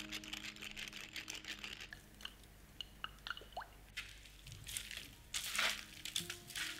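Black pepper powder sprinkled onto cubes of firm tofu, a fast run of tiny ticks in the first two seconds. Then hands break and squeeze the tofu: soft, moist crumbling and squishing, loudest about five and a half seconds in.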